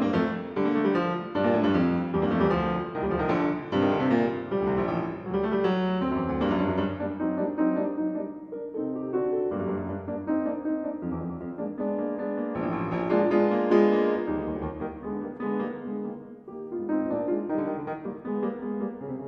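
Background piano music, a flowing melody of struck notes with a softer passage midway.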